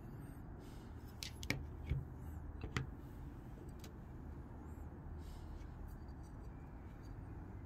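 Fixed-blade knives being handled and swapped on a table: a few sharp clicks and light taps in the first three seconds, then quieter handling against a low steady background hum.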